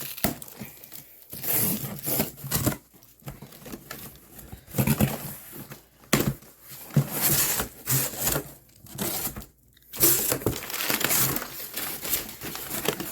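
Cardboard shipping box being torn open by hand, with packing material crinkling, in a string of irregular bursts.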